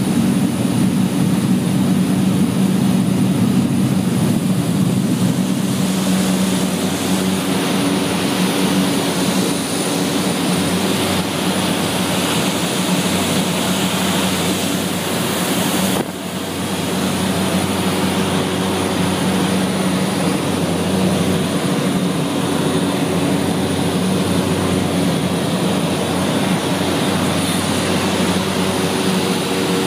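Small propeller airplane's engines and propellers droning steadily in cruise, heard from inside the cockpit. A click and a brief drop in level come about halfway through.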